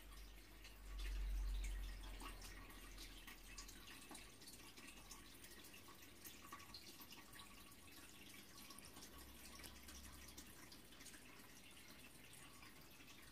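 Quiet room tone with faint scattered ticks, and a deep rumble of microphone handling noise from the handheld camera about a second in and again, weaker, near ten seconds.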